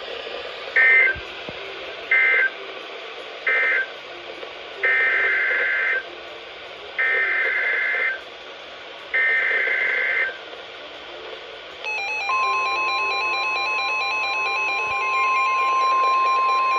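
NOAA Weather Radio SAME data bursts: three short end-of-message bursts, then three longer header bursts for the next alert. About twelve seconds in, a steady 1050 Hz warning alarm tone begins, with a pulsing electronic beep sounding over it.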